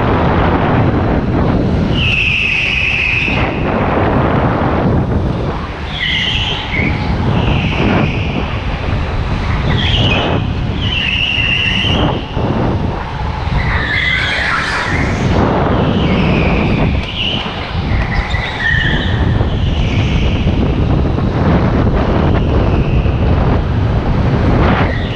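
Indoor rental kart lapping on a smooth concrete track, heard onboard as a steady rumble and rush, with the tyres squealing through the corners many times, every few seconds.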